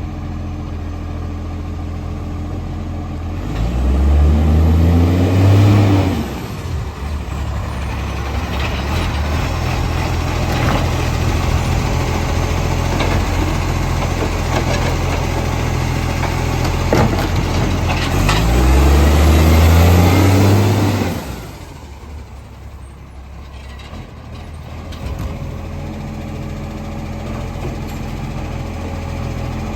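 Garbage truck engine with a massive exhaust leak, idling and revved up twice, about four seconds in and again around eighteen seconds in. Each rev rises in pitch for a couple of seconds before dropping back to idle.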